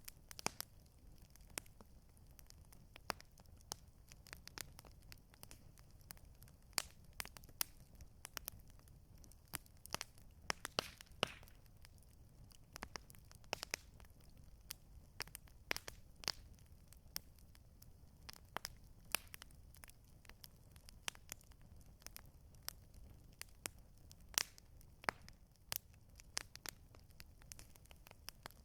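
Wood campfire crackling, with irregular sharp pops and snaps over a faint low rumble.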